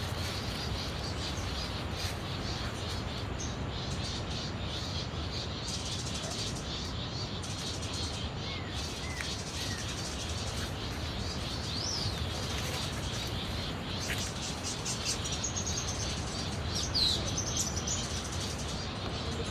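Rainforest birds calling over a steady hiss of ambient noise: a few short whistled notes that slide up and down, and a high trill near the end, with a fast high ticking chorus running underneath.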